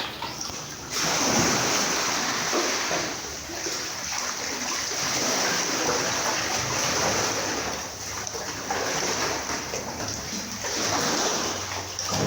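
Sea water splashing and sloshing, swelling and easing every second or two.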